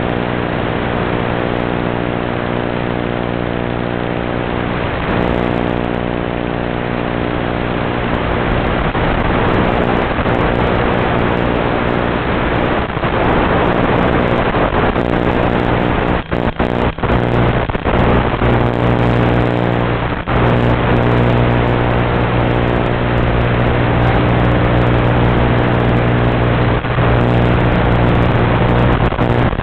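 Harsh, low-quality onboard audio of a UMX Turbo Timber micro RC plane in flight, recorded through its micro FPV camera: a steady buzz under a rushing hiss that swells and fades. The audio cuts out briefly a few times about halfway through.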